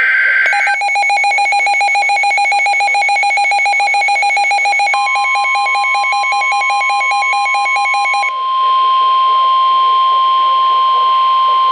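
NOAA Weather Radio flood-warning alert sequence: the end of the SAME digital header bursts, then a weather radio receiver's alarm beeping in rapid pulses. About five seconds in, the broadcast's steady 1050 Hz warning alarm tone begins and holds after the pulsing stops about three seconds later.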